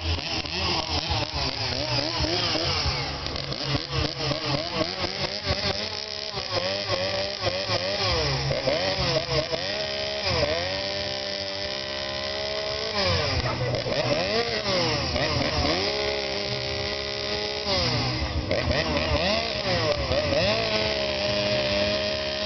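Two-stroke chainsaw cutting into wood during carving, its engine pitch rising and falling with the throttle and dipping sharply several times as it bogs in the cut and recovers.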